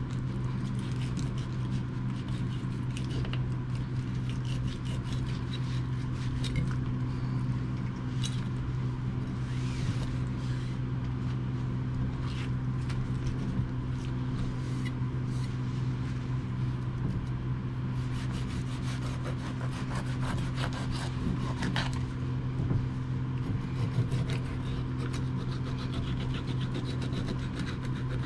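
Kitchen knife cutting and scraping through a Korean rockfish on a plastic cutting board while it is filleted: irregular rasping strokes as the blade works along the bones, over a steady low hum.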